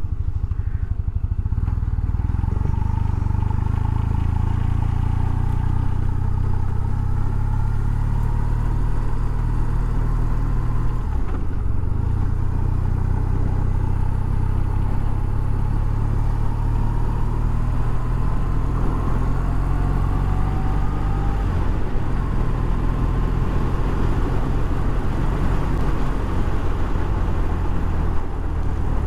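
BMW R1200C motorcycle's boxer twin engine running steadily as the bike cruises along. The engine note shifts slightly a couple of times.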